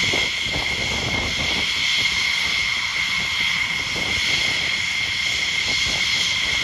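F-16 jet engine running steadily, a high-pitched whine held at one pitch over a low rumble.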